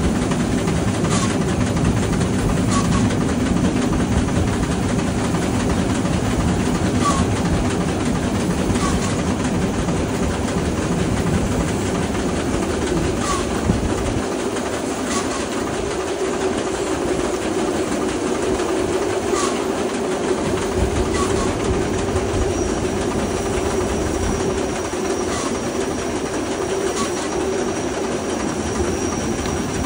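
Steam train running along the track: a continuous rumble with the clicks of wheels over rail joints, coming in pairs every few seconds. A thin steady high tone joins about two-thirds of the way in.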